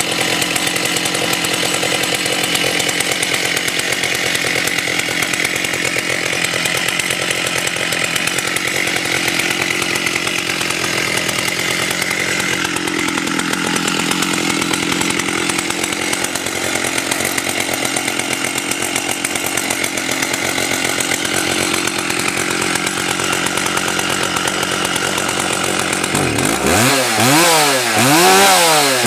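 Stihl 084 two-stroke chainsaw running loud and steady at high speed. About 26 seconds in, the throttle is revved up and down over and over, the engine pitch rising and falling with each rev.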